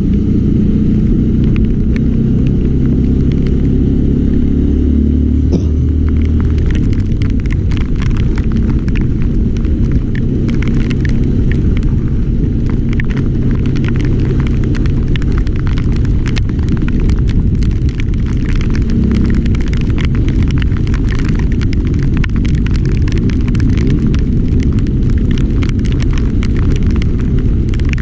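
Loud, steady low rumble of a vehicle ride in the rain, an engine running under heavy wind noise, with many sharp ticks throughout that grow thicker about eight seconds in.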